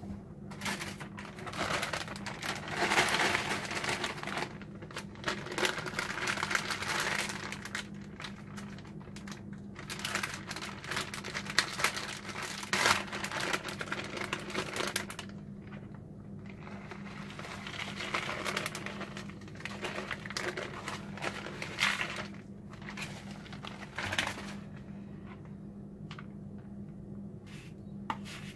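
Crinkling and rustling in bursts with some scraping, as shredded cheese is handled and spread onto a taco on a paper plate, over a steady low hum.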